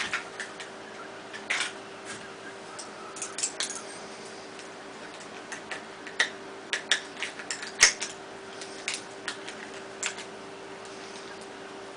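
Irregular sharp clicks and clacks of a balisong (butterfly knife) being handled and drawn from its kydex sheath, the loudest click about two-thirds of the way through, over a faint steady hum.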